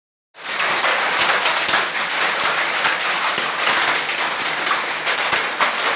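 A hailstorm: hailstones and rain falling hard on a concrete courtyard, a dense steady hiss with many sharp ticks of stones striking.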